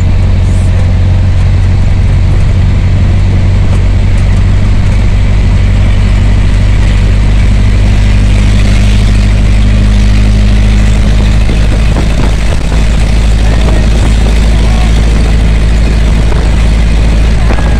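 Engine and road noise heard inside the cabin of a moving passenger vehicle: a steady, loud low drone.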